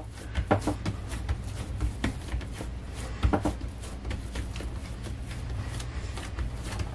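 Hands pressing and patting a large piece of soft bread dough flat on a silicone pastry mat: soft, irregular pats, one a little louder about three seconds in, over a faint steady low hum.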